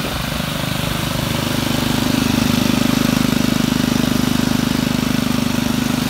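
Honda GXV160 single-cylinder engine on a gas-powered mini joint filler (a paver sand sweeper) running steadily, getting a little louder about two seconds in.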